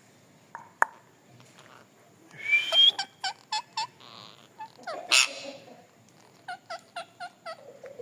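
Indian ringneck parakeets calling: a loud screech about two and a half seconds in, then a short run of clipped notes, another loud call around five seconds, and a quick series of six short repeated notes near the end.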